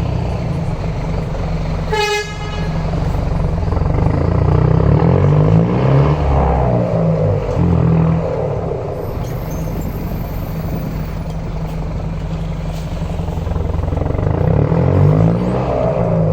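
Mercedes-Benz OM924LA four-cylinder turbodiesel of an LO 916 bus running under load, its pitch rising and falling as it pulls away and accelerates. A short horn toot about two seconds in.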